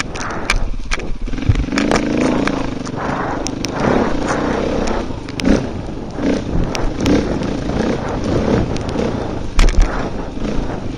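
Off-road motorcycle engine revving up and down as the throttle is worked along a rough trail, with frequent sharp knocks and clatter from the bike jolting over the ground.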